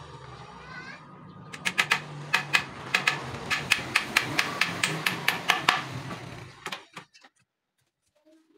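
Hammer driving nails into a wooden frame: a run of quick, sharp strikes, about three or four a second, from about a second and a half in until almost six seconds. Under it runs a steady low hum that stops about seven seconds in.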